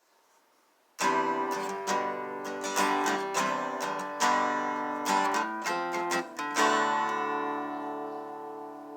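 Acoustic guitar strumming chords as outro music, starting after a second of silence and the last chord left to ring out.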